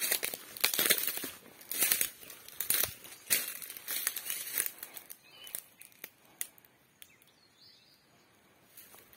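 Footsteps crunching and crackling through dry fallen oil palm fronds and leaf litter, roughly one step a second. After about five seconds the steps stop, leaving only faint rustles and clicks.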